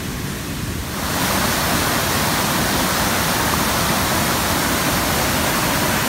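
Rushing water of a fast-flowing river tumbling over rapids: a steady rushing noise that grows louder about a second in and then holds.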